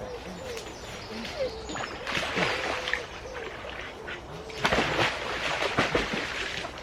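Water splashing in a shallow river, in two bursts, the louder one about two-thirds of the way in. Low cooing calls, like a pigeon's, repeat in the background through the first half.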